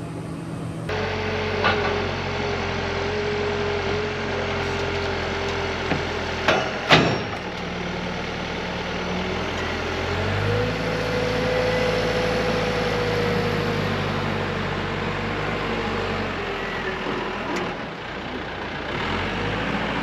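Diesel engine of a JLG telehandler running while it carries a large log, with a thin steady whine over the engine note. Engine and whine both step up in pitch about halfway through, then ease back down near the end. A few sharp clanks come early on, the loudest about a third of the way in.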